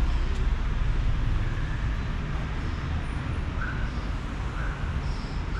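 Steady street ambience of road traffic, a continuous low rumble, with a few faint short high chirps.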